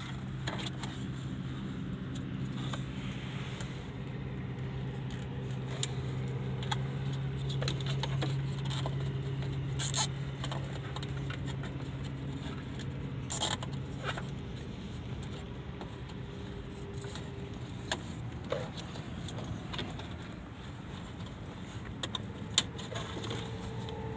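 Small clicks, rattles and scrapes of hands working wiring and plastic cable ties under a car's dashboard, with a few sharper clicks partway through, over a steady low hum.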